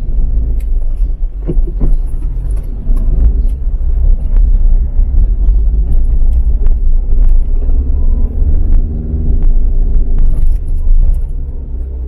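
Car driving, heard from inside the cabin: a loud, steady low rumble with frequent small clicks and rattles.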